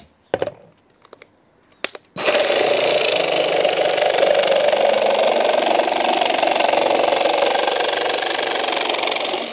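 Parkside 20 V cordless jigsaw with its pendulum action switched on, cutting through laminate flooring with a wood-cutting blade. After a few faint clicks it starts abruptly about two seconds in and cuts steadily.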